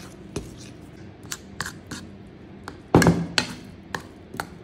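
Metal fork clinking and scraping against a white ceramic bowl while stirring thick mashed-banana batter, in irregular taps with one louder knock about three seconds in.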